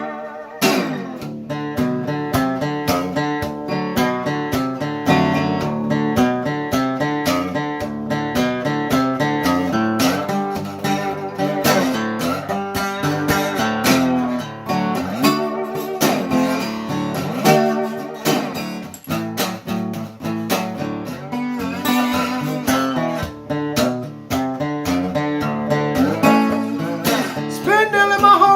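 Guitar strumming chords in a steady rhythm: the instrumental intro of a song, before the singing comes in.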